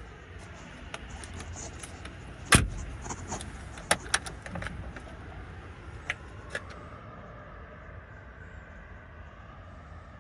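Sharp mechanical clicks and knocks from the Mercedes-Benz G55 AMG's rear side door being unlatched and swung open by hand. The loudest knock comes about two and a half seconds in, then a cluster of smaller clicks around four seconds and two more near six seconds, over a low steady outdoor rumble.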